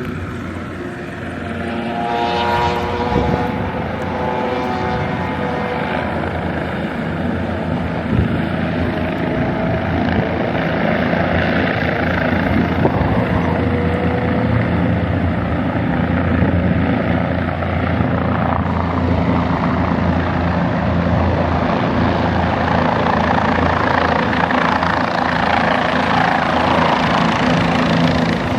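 A steady low engine drone with an even hum in it, growing gradually louder.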